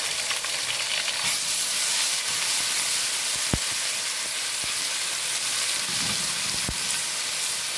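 Ginger-garlic paste and sliced onions sizzling in hot oil in a metal pot while a wooden spatula stirs them. The sizzle swells about a second in, and the spatula knocks lightly against the pot three times.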